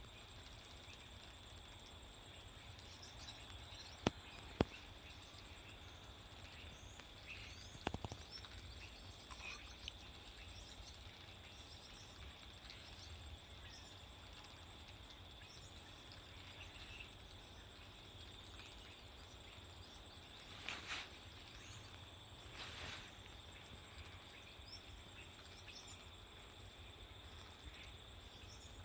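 A steady, high insect drone of crickets or cicadas, with faint scattered bird chirps. A few sharp clicks come about four and eight seconds in, and two short noisy bursts come about twenty-one and twenty-three seconds in.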